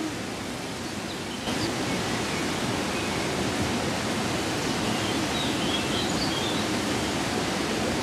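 River water rushing over rocks in a gorge, a steady even rush that gets louder about a second and a half in.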